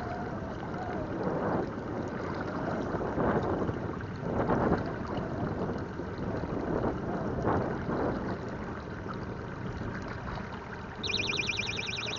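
Wind on the microphone and water splashing against a pontoon boat, rising and falling in gusts. Near the end, a rapid high electronic beeping starts.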